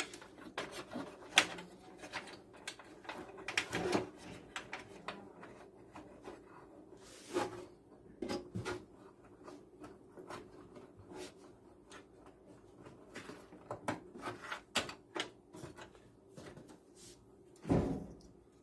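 Irregular clicks, taps and rattles of power supply cables and plastic connectors being handled and routed inside a desktop PC case during cable management, with a louder dull knock near the end.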